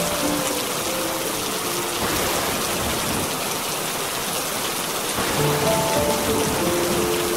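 Steady rain. Soft musical notes play over it for the first two seconds, stop, and come back about five seconds in.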